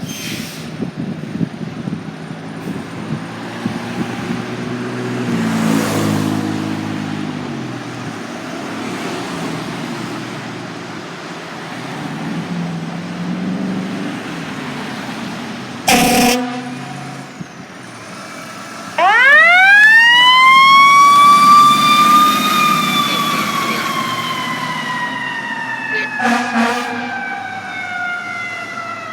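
Fire truck responding: its engine revs, a short air horn blast sounds about halfway through, then a mechanical siren winds up to a high wail and slowly coasts down, with another short horn blast near the end and the siren starting to wind up again as it closes.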